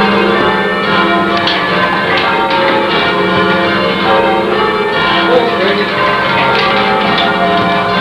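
Church bells being rung in changes by full-circle ringers, heard from the ringing room below the bells: a continuous stream of overlapping bell strikes with no break.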